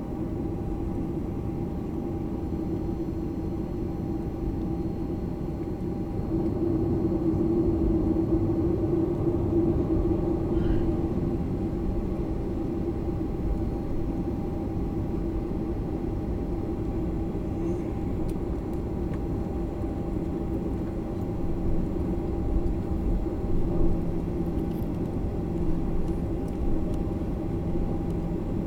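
Jet airliner cabin noise: the engines and airflow rumble steadily under a constant hum. It grows a little louder about six seconds in, and a lower steady tone joins near the end.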